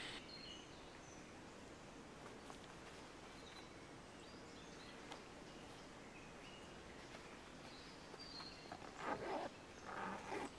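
Faint outdoor forest ambience with occasional short, high bird chirps. Near the end come two brief rustles.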